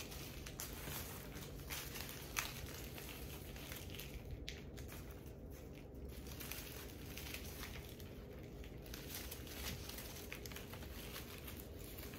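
Crinkling and rustling with small irregular clicks as artificial flowers are handled and arranged, with one sharper click about two and a half seconds in.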